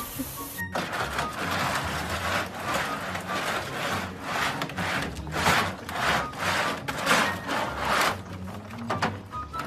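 Puppy's claws scratching and scrabbling at the floor of an empty hard plastic wading pool, in repeated rasping strokes about two a second that ease off near the end.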